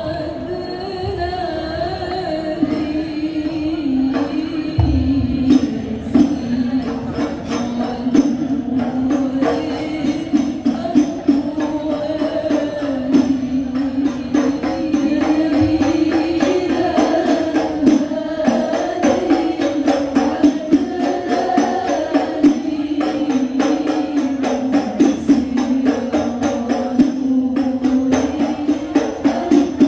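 Women's hadrah group singing a devotional sholawat melody together through a PA, accompanied by rebana frame drums. The singing opens alone, and the drums come in about five seconds in with a fast, dense beat.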